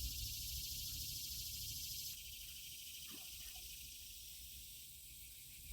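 Steady, high-pitched chorus of insects chirring, dropping a little in level about two seconds in, over a faint low rumble; a faint short tap about three seconds in.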